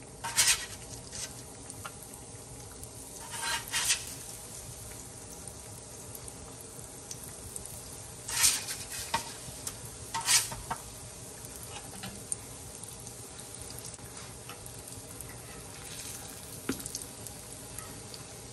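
Donut dough frying in shallow oil in a cast iron skillet: a steady low sizzle, with several short, louder bursts of sizzling as donut holes are dropped into the hot oil.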